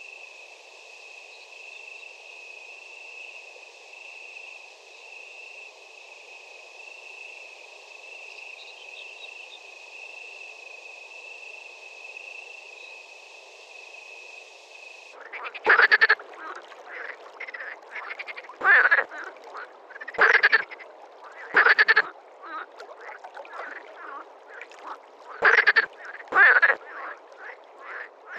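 A steady high-pitched drone fills the first half and cuts off suddenly. Loud frog croaks follow, coming one at a time about every second or two.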